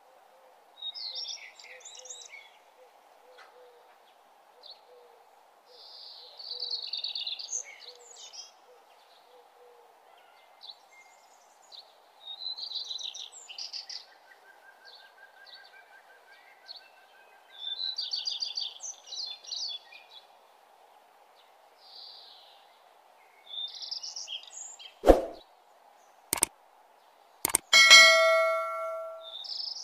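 Small birds chirping in short phrases every few seconds over a faint steady hiss. Near the end come a few sharp clicks, then a bell ding, the sound effect of a subscribe-button animation.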